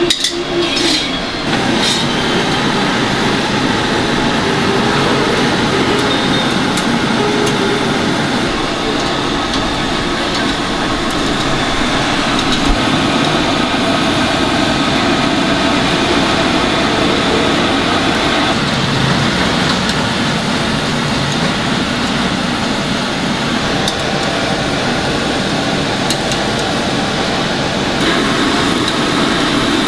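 Loud, steady rushing drone of a charcoal grill stall's exhaust fan, with a few light clicks in the first couple of seconds.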